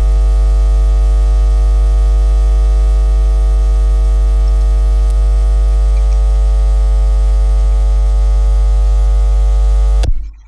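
Loud, steady electrical mains-type hum, a low buzz with many overtones, added as a sound effect. It switches on abruptly and cuts off suddenly near the end.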